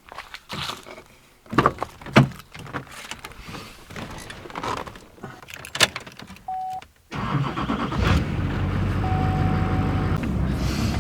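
Keys jangling with knocks and clicks as a vehicle is got into, and a short electronic beep. Then the engine starts about seven seconds in and runs at a steady idle, with a second, longer beep soon after.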